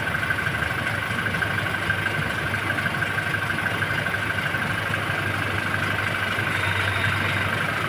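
Toyota Innova Crysta engine idling steadily, with a constant high tone over the hum. No distinct creak comes through from the worn lower-arm ball joint.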